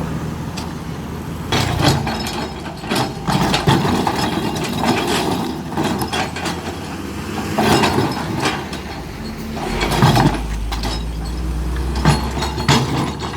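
Shantui SE210 excavator's diesel engine running steadily as its bucket scrapes and spreads crushed stone, with irregular clatters and scrapes of rock every second or two.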